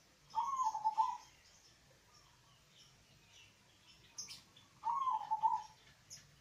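Zebra dove (perkutut) cooing twice, about four and a half seconds apart: each phrase lasts about a second, a sharp opening note followed by a quick run of lower, stepped notes.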